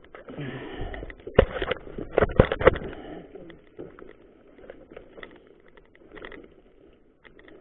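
Mountain bike ridden over a rough gravel track, its frame and camera mount rattling and knocking over the bumps. A cluster of sharp knocks comes between one and three seconds in, then it goes quieter.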